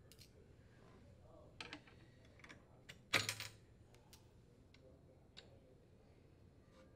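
Scattered small metal clicks and clinks of retaining pins and washers being pulled off a refrigerator compressor's mounting studs, the loudest a little past three seconds in.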